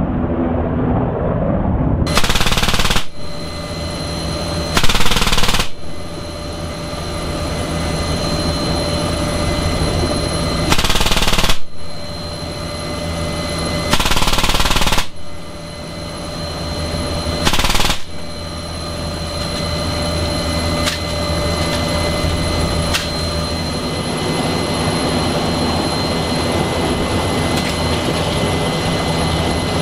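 Five bursts of fire, each under a second long, from the door-mounted M3M 12.7 mm heavy machine gun, heard from inside the NH90 helicopter cabin. Between the bursts, and after the last one, the helicopter's turbine whine and rotor rumble run steadily.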